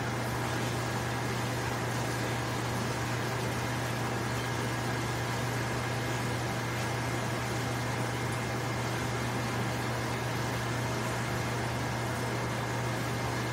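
Large commercial Champion dishwashing machine running: a steady low hum under an even hiss, unchanging throughout.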